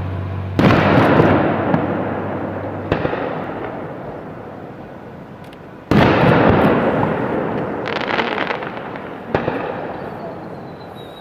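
Fireworks shells bursting, two big bangs followed by crackling that fades away slowly over several seconds, with smaller pops in between. A faint high falling whistle comes near the end.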